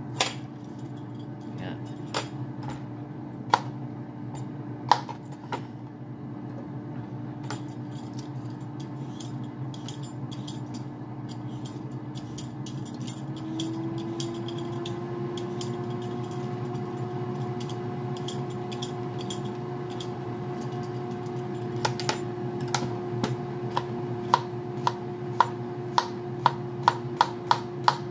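Kitchen knife slicing a cucumber on a plastic cutting board: a few scattered knocks of utensils on the board at first, then steady slicing taps about two a second over the last several seconds. Underneath runs a steady fan hum that steps slightly higher in pitch about halfway through.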